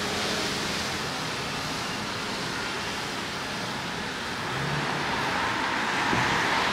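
Street traffic noise: a steady hiss of car tyres on a wet road, swelling as a car passes close near the end.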